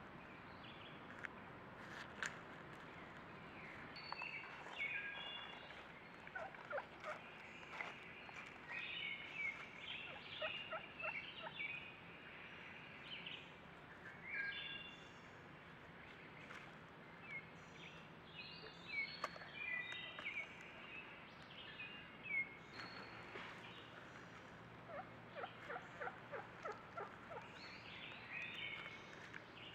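Wild turkeys gobbling and calling: three rattling gobbles, each about a second long, come through among many short, higher calls. The calls are fairly faint.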